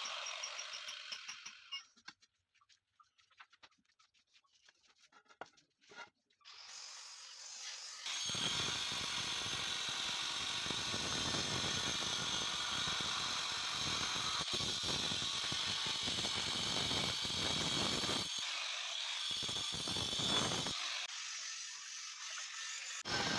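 Handheld electric stone cutter grinding into a granite strip, a steady gritty whine. It winds down at the start and is quiet for a few seconds with small clicks, then comes back up and grinds steadily for about ten seconds. It breaks off briefly twice and picks up again near the end.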